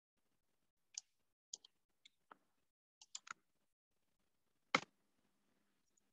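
Sparse, faint clicks from a computer keyboard and mouse, about nine of them spread over the first three and a half seconds. Then comes one louder knock about three-quarters of the way through.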